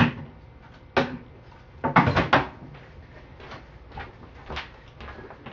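A few sharp knocks and clatters of hard objects being handled, the loudest a quick cluster of clatters about two seconds in, with fainter knocks after.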